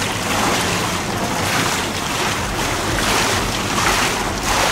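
Wind blowing across the camera microphone, a steady rushing noise that swells and eases in gusts.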